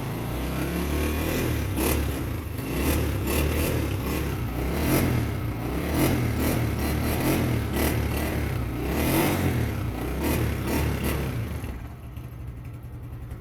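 Honda CG125's single-cylinder four-stroke engine being revved in repeated throttle blips. It drops back to a steady idle near the end.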